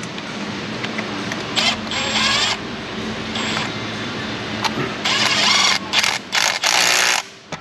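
Cordless ratchet spinning a socket on an extension to run down a power steering pump mounting bolt. There are short whirring bursts of its motor, then a run of longer, louder bursts near the end as the bolt draws tight.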